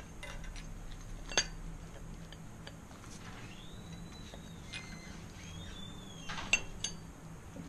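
Light metallic clinks and scraping as a steel rear drive sprocket is handled and worked onto a bicycle wheel hub among the spokes. There is a sharp clink about a second and a half in and a few more near the end.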